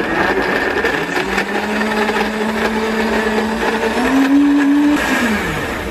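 JTC OmniBlend V high-speed blender running, blending banana and sour cherries into a smoothie. Its motor pitch steps up about four seconds in, then it winds down and stops near the end.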